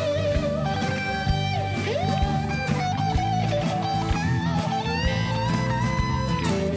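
Rock band playing an instrumental break: an electric guitar lead with sliding, bent notes over steady drums.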